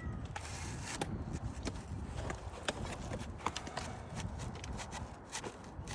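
A wooden shake being pushed and worked into place under the overlapping shakes: irregular light knocks, clicks and scrapes of wood on wood, the new shake catching on something hidden underneath, over a steady low rumble.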